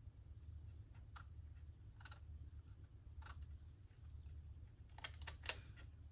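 Scattered sharp clicks and taps from small plastic parts of a cassette data recorder's mechanism being handled and worked, two of them louder near the end, over a low steady hum.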